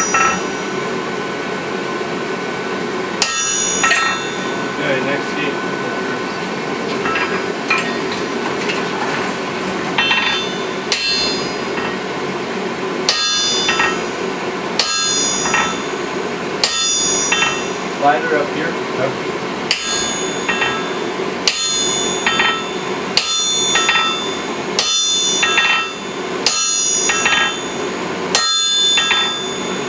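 Sledgehammer blows striking an H13 hot cut top tool held on a red-hot claw-hammer head on the anvil, hot-cutting the split between the claws; each blow rings sharply. About a dozen blows, sparse at first and then steady at about one every second and a half, over a steady hum.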